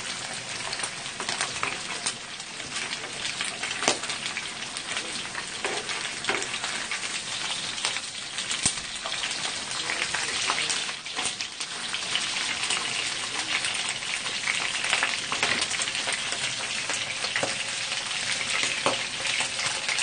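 Meat sizzling as it cooks: a steady frying hiss with scattered small pops.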